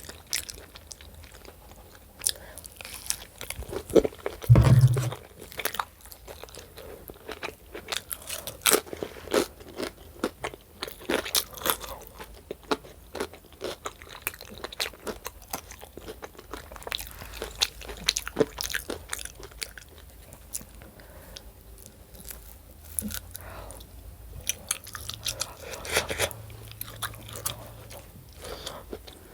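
A person chewing and biting food close to the microphone, with crunching and many sharp mouth clicks. A loud low thump comes about four and a half seconds in.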